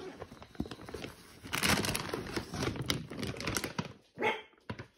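Plastic bag of dry puppy food crinkling and rustling as it is handled and lifted out of a tote bag, busier and louder from about a second and a half in.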